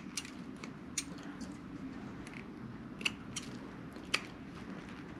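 The foil shield of a multi-conductor cable crinkling as it is snipped and torn away around the wire bundle, with a few sharp little clicks spread through it.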